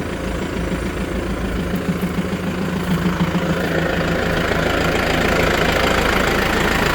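Tractor engine idling steadily, with a rushing noise growing in about four seconds in.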